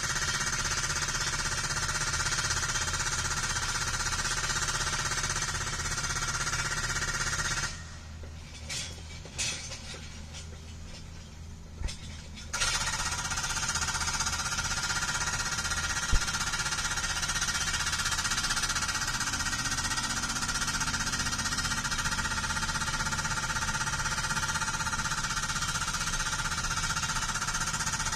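Hydraulic breaker hammer on a Caterpillar 305 mini excavator pounding boulders, a dense, even hammering. About a third of the way in it stops for roughly five seconds, leaving only a low engine rumble, then starts again.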